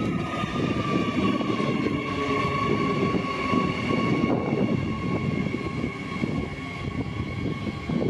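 Queensland Rail electric multiple unit passing close by, its wheels rumbling on the rails under a steady electric whine that sinks slowly in pitch.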